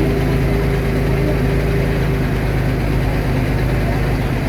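Heavy diesel engine of earth-moving machinery running steadily at a low, even pitch, with a higher steady tone over it that fades out about two seconds in.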